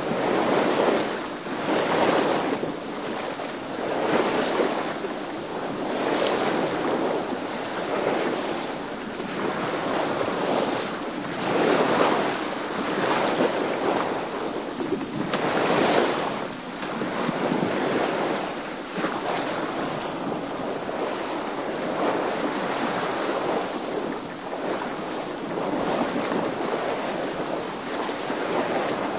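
Water washing and splashing along the hull of a sailing boat under way, rising and falling in swells every second or two, with wind.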